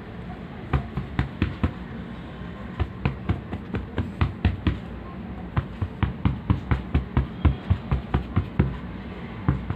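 A long run of short, sharp taps, about two to three a second, coming in bursts with brief pauses.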